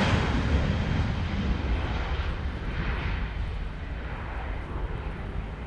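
Boeing 737-900's CFM56 jet engines on departure: a broad roar with a deep rumble that fades steadily as the airliner moves away.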